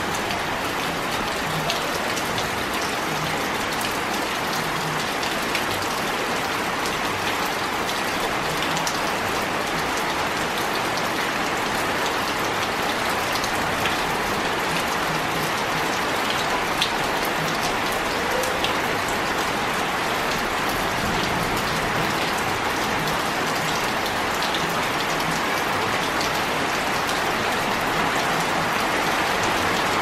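Rain falling steadily on wet stone paving slabs, drops splashing on the surface, with a few sharper single drop ticks standing out.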